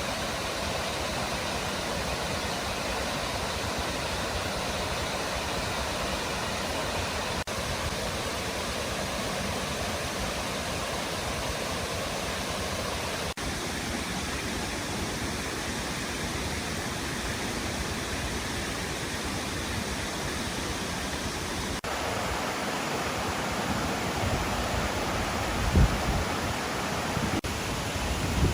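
Waterfall rushing steadily, an even roar of falling water. A few low bumps come in near the end.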